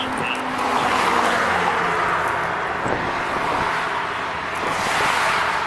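Road traffic going past: a steady rushing noise that swells as vehicles pass, about a second in and again near the end.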